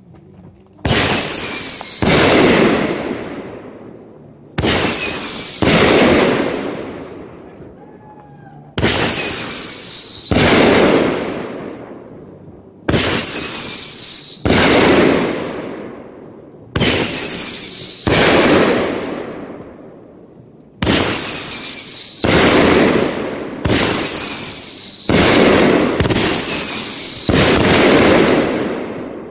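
Aerial fireworks going off one after another, eight in all, at about four-second intervals and closer together near the end. Each is a sudden bang with a high whistle that falls in pitch, then a second bang about a second later that fades away over a couple of seconds.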